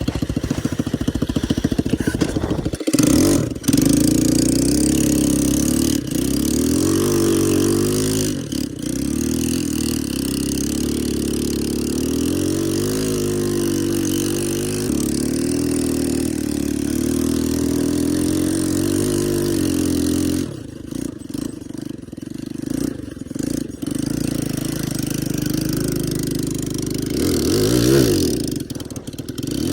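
ATV engine revving up and down repeatedly, its pitch rising and falling with the throttle. Roughly two-thirds of the way through it drops off and runs quieter and unevenly for a few seconds, then revs up again near the end.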